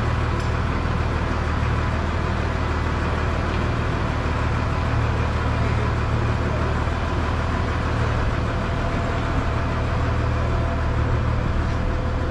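An engine or heavy machine running steadily, a constant low drone.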